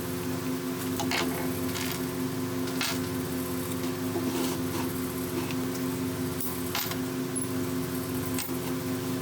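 Electric motor running steadily with a low, even hum, with a few sharp clicks of metal parts or tools handled now and then.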